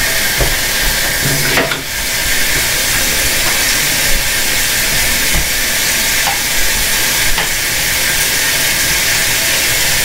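A steady, loud hiss, with a few light clicks and knocks of small items being handled.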